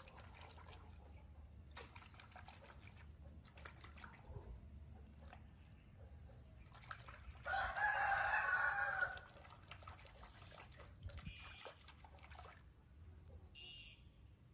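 A rooster crows once, about halfway through, for under two seconds.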